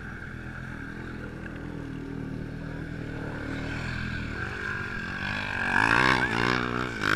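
An ATV engine running steadily, then revving up about five seconds in with a rising pitch, loudest near the end, with water splashing over it.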